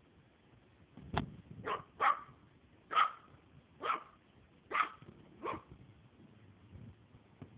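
Maltese puppy barking at play: about seven short, high-pitched barks, one every second or less.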